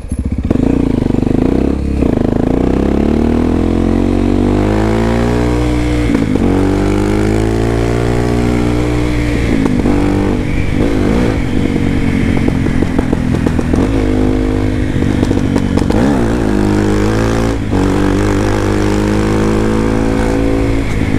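Honda XR250 Tornado's single-cylinder four-stroke engine running as the motorcycle is ridden, heard from on board. The revs climb over the first few seconds, then fall and rise again several times as the rider works the throttle.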